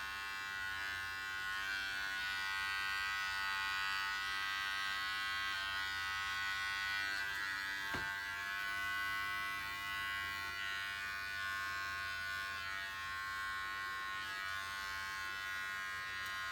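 Masterclip Showmate cat trimmer running steadily while clipping a cat's fur, with a single brief click about eight seconds in.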